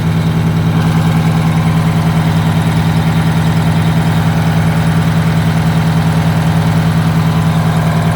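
Detroit Diesel 8V92 two-stroke V8 diesel engine of a Blue Bird Wanderlodge motorhome idling steadily, with an even, regular pulse.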